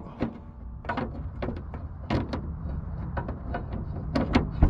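Scattered clicks and knocks as the hood of a Land Rover Discovery 2 is lifted open by hand, over a steady low rumble. The sharpest knocks come about two seconds in and near the end.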